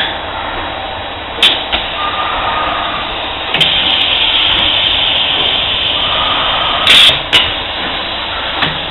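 Pneumatic roller forming machine working a part: sharp mechanical clacks of the slide and tooling at about 1.5, 3.5 and 7.5 seconds, a loud short burst about seven seconds in, and continuous machine and workshop noise underneath.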